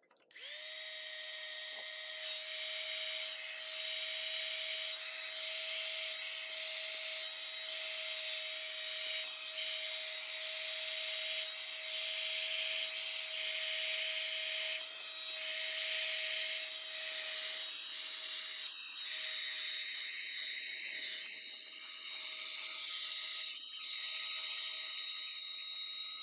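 Master heat gun running: a steady whine from its fan motor over a loud hiss of blown hot air, swelling and easing every second or so as it plays over the EVA foam to heat and open up the knife cuts in its surface.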